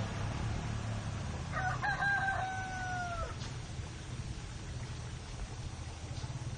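A rooster crows once, about a second and a half in: a few short notes, then one long note that falls slightly at the end. A steady low engine hum runs underneath.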